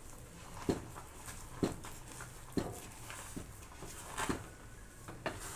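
Wooden cooking stick (mwiko) mixing and pressing stiff ugali dough in a pot, with a soft thud about once a second, six strokes in all.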